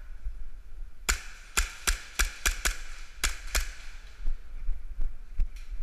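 KWA USP .45 gas blowback airsoft pistol firing eight quick shots over about two and a half seconds, starting about a second in. A few fainter knocks follow near the end.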